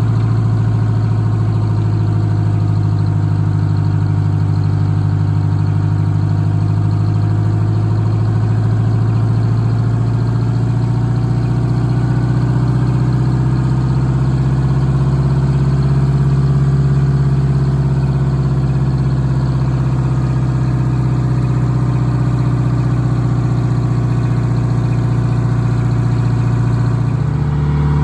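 Eagle bus's diesel engine idling steadily. Its pitch rises slightly through the middle and drops back, with a small change in tone shortly before the end.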